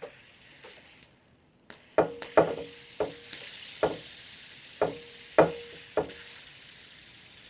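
Fidget spinner whirring with a steady high hiss that slowly dies away, punctuated by about seven sharp knocks, several with a short ringing note, as it is handled and knocked about.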